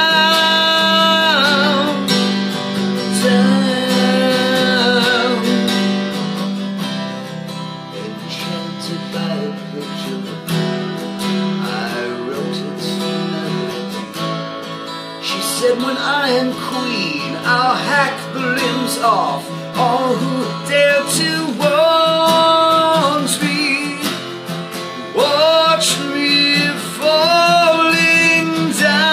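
A man singing live to his own strummed acoustic guitar, with long held notes near the start and again in the last third and a quieter stretch in between.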